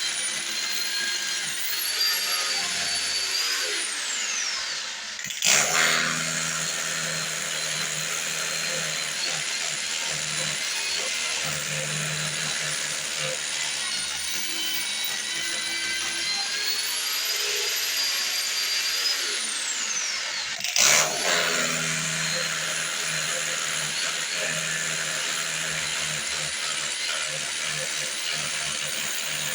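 Electric power tool running continuously while opening up a wall or floor to reach a hidden water leak. Its motor pitch rises and falls twice, and two short, loud bangs come about five seconds and twenty-one seconds in.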